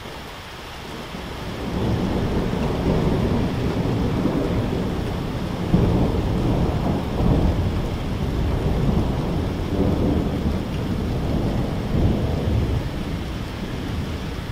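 Long rolling thunder over steady rain: the rumble builds over the first couple of seconds, then swells and fades in waves, with louder peaks about six and twelve seconds in, easing slightly near the end.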